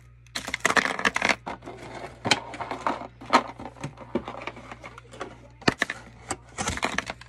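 A plastic-and-cardboard blister pack of batteries being handled and torn open: irregular crinkling and crackling with sharp snaps.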